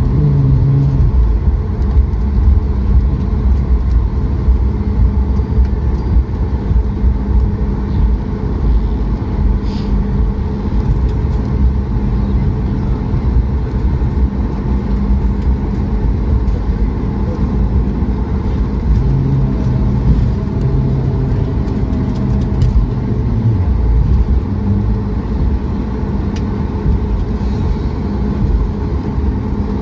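Cabin noise inside a Boeing 737 MAX 8 taxiing after landing: a steady, loud low rumble.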